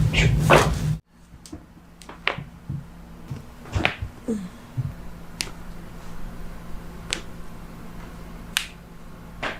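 Joints cracking during a chiropractic adjustment: sharp single pops about one every second or two, following a louder noisy second that cuts off abruptly.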